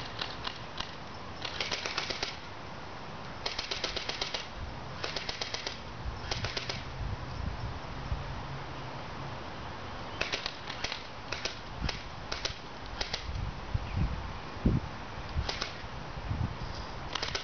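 Airsoft guns firing off camera: several rapid bursts of sharp clicking shots in the first seven seconds, then scattered single shots. Late on, a single louder low thump stands out.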